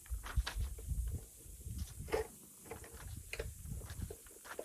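Irregular small clicks and knocks of hands working at a chainsaw's bar-oil cap, tugging and twisting to get it off, with a low handling rumble.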